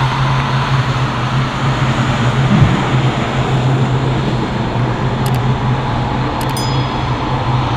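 Single SNECMA M53 turbofan of a Dassault Mirage 2000 running at taxi power as the jet rolls along the runway: a steady, loud rushing hum over a constant low drone.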